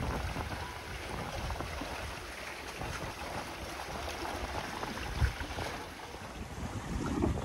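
Wind buffeting the microphone over the wash of open-ocean waves past a small sailboat under way, with one short knock about five seconds in.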